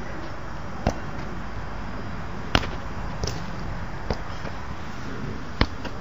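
A football being kicked back and forth on artificial turf: about five sharp thumps of inside-foot passes, irregularly spaced, over a steady outdoor hiss.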